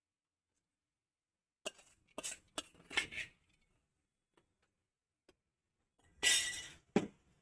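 Kitchen utensils clinking and knocking against a mixer jar as soaked urad dal is put into it: a few light clinks about two seconds in, then a short louder clatter near the end that ends in a knock.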